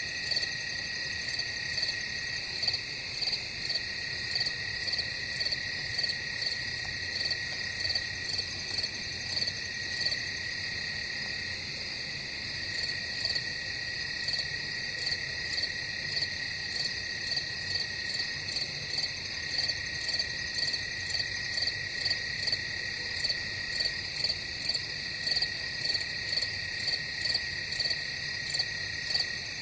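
Crickets chirping in a night chorus: a steady high trill with regular, evenly spaced chirps over it, about one and a half a second.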